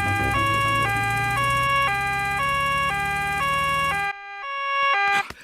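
Cartoon emergency-vehicle two-tone siren, switching between a high and a low note about every half second, over a low engine hum that stops about four seconds in while the siren goes on.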